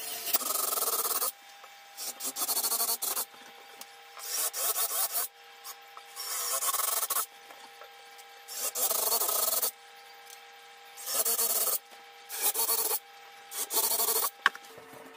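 Cordless drill boring the handle screw holes through a wooden cabinet door, in about eight short bursts of about a second each.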